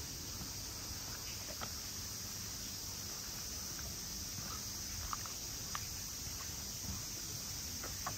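Soft, irregular footsteps of someone walking, a few faint ticks scattered through, over a steady outdoor background of low rumble and high hiss.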